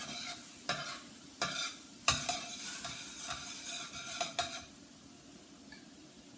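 A utensil stirring in a pan of sizzling sauce, knocking against the pan several times, as flour or arrowroot is worked in to thicken it. The sizzle and stirring die down to a quieter hiss near the end.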